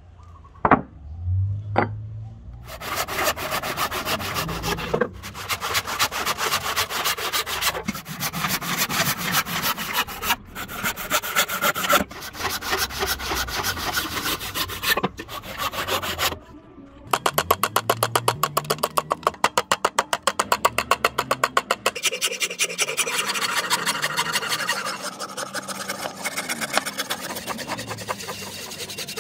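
Hand saw cutting through a dark hardwood handle blank in quick rasping strokes, in several short runs with sudden breaks between them and a very fast, even run in the middle. Two short knocks near the start.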